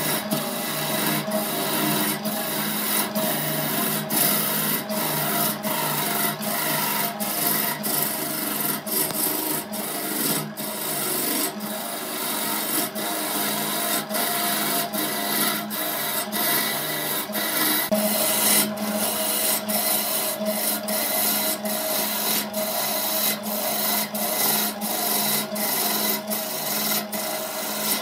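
Wood lathe running with a turning chisel cutting into a spinning wooden vase blank: a steady motor hum under the scraping hiss of the cut. A regular tick repeats about twice a second.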